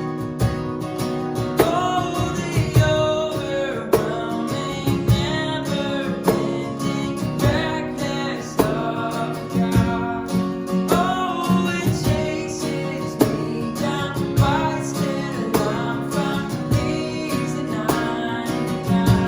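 Live worship music: strummed acoustic guitar with steady percussion hits and a singer carrying the melody.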